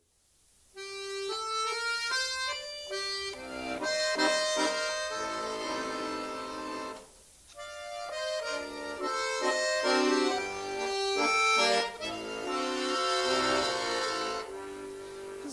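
Accordion playing a song's instrumental introduction: a melody over chords, with a brief pause about seven seconds in.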